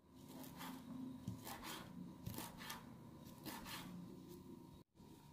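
Knife chopping a bunch of fresh dill and parsley on a cutting board: quiet, uneven strokes about two a second, over a faint steady hum.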